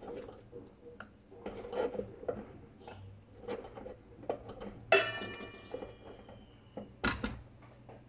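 Stainless steel mixing bowls being handled, with soft scraping and knocks and one sharp metallic strike about five seconds in that rings on and fades over nearly two seconds. A dull knock follows shortly after.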